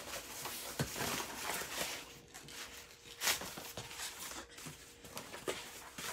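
Torn pieces of a cardboard box being handled and stacked: irregular rustling and scraping with small knocks, and one louder sharp noise about three seconds in.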